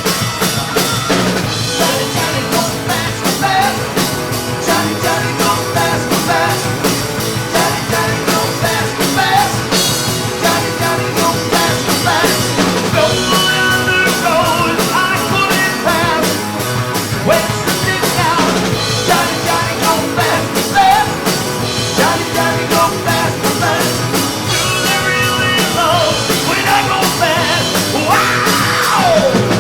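A rock band playing live: a drum kit keeps a steady beat under guitars, with a falling pitch sweep near the end.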